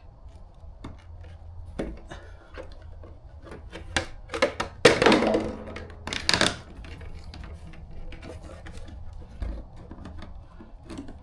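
Objects being handled: scattered light knocks and clicks, with two louder scraping rustles a little before and after the middle.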